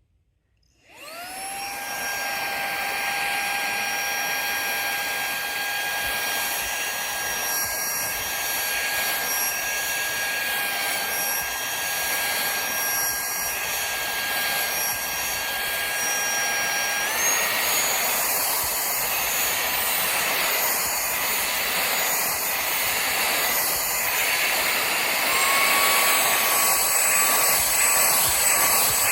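Wirelume cordless handheld car vacuum cleaner's brushless motor switched on: it spins up about a second in to a steady high whine over rushing air, and steps up in pitch about halfway through and again near the end.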